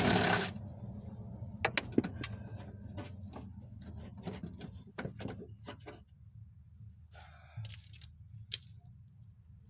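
Hand tools and metal parts clicking and knocking inside a car door while the lock assembly is unbolted, with a loud rustling burst right at the start.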